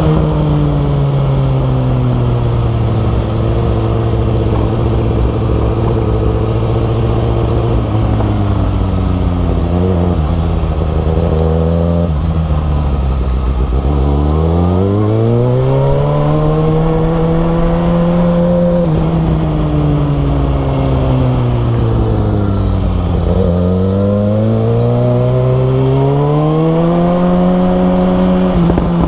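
Kawasaki Ninja ZX6R inline-four engine running under way, its revs sinking slowly for about the first fourteen seconds, then climbing, easing off, and climbing again near the end, over a steady rush of wind.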